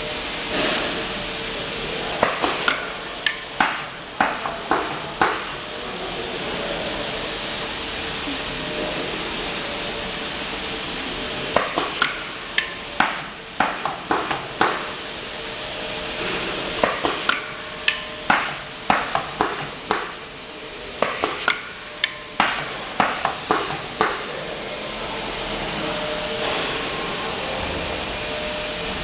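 Bench-top pneumatic cable-labeling machine cycling: quick runs of sharp clacks and clicks as its air cylinders clamp and wrap labels onto a wire, coming in three spells. A steady hiss and a faint hum run underneath.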